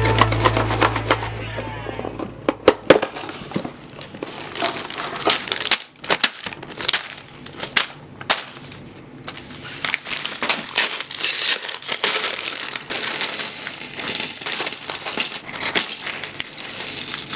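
Plastic bags crinkling, with scattered sharp clicks and rattles of small plastic building bricks being handled; the tail of a music track fades out over the first couple of seconds.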